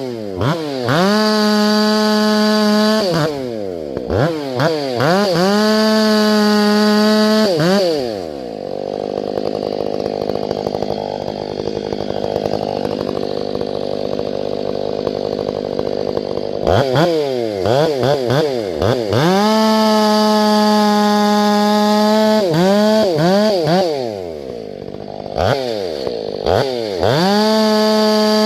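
Chainsaw being revved over and over: the engine blips up to full revs and is held there for a couple of seconds at a time. About eight seconds in it drops to a lower, steady running speed. It winds back up with more quick throttle blips some eight seconds later.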